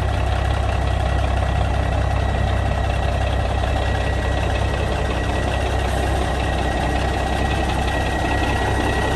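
Cummins Big Cam 350 diesel of a 1985 Freightliner cabover running at low speed as the truck rolls slowly forward: a steady, deep engine drone. A thin, steady high whine sits over it.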